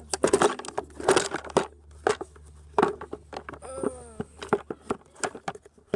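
Hard plastic and rubber parts of a Polaris ATV's air filter housing clattering and knocking as the piece is worked loose and pulled out over the carburettor, with a short squeak of parts rubbing a little past the middle.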